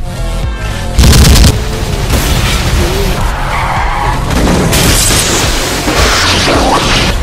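Action film-trailer sound mix: a loud boom about a second in, then a dense run of crashing sound effects with music under them and a few rising sweeps.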